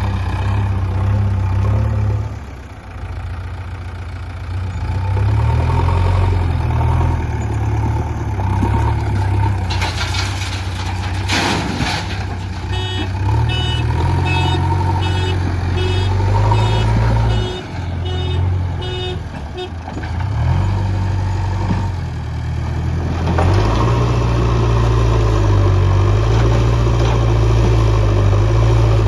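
JCB Eco Xcellence backhoe loader's diesel engine working under load, its drone rising and falling as the machine digs and loads mud. About ten seconds in there is a short noisy clatter, and from about thirteen to nineteen seconds a repeating electronic beep, about two a second.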